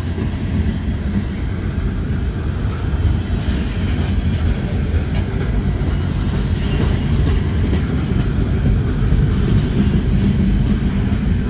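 Norfolk Southern freight train's boxcars and tank cars rolling past, a steady low rumble of steel wheels on the rails.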